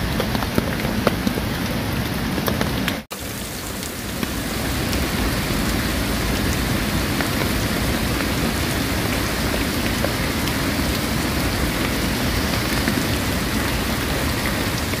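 Steady heavy rain, with sharp drops tapping a surface for the first few seconds. It cuts out abruptly about three seconds in, then comes back as a denser, even hiss of rain.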